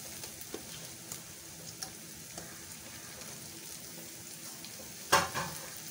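Chopped onions and freshly added tomato pieces frying in oil in a kadai: a soft, steady sizzle with a few scattered light pops. A single sharp knock sounds near the end.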